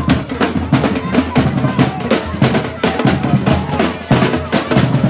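Batucada percussion ensemble playing a samba rhythm: deep surdo bass drums under snare drums, in a fast, even, unbroken beat.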